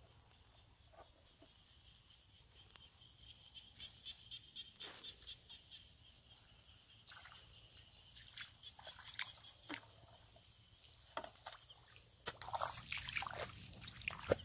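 Bare feet squelching and splashing through soft wet mud and shallow puddle water, a string of short wet steps that gets louder and busier near the end. A faint, high pulsing trill runs underneath in the first half.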